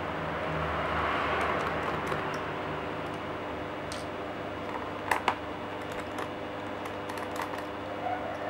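Small scattered clicks and taps of a screwdriver and loose screws on a laptop's plastic bottom case as its screws are taken out, the loudest a quick pair about halfway through, over a steady background hum.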